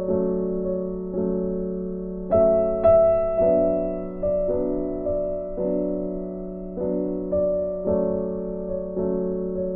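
Background music: soft piano, notes and chords struck about once a second, each fading before the next.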